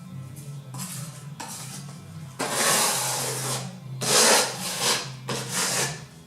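Trowel spreading and smoothing decorative plaster over a primed wall surface: a run of scraping strokes of uneven length, the longest lasting over a second, about two and a half seconds in.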